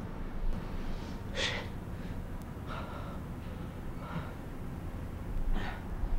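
A person breathing hard: four sharp, hissy breaths about a second and a half apart, the first the loudest.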